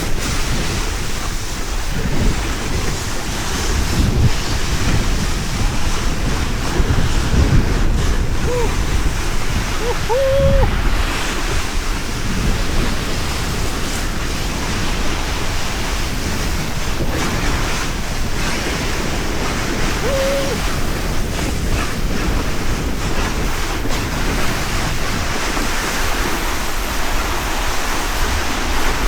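Wooden sandboard sliding fast down loose volcanic ash and gravel, a continuous rushing scrape, with heavy wind buffeting the microphone.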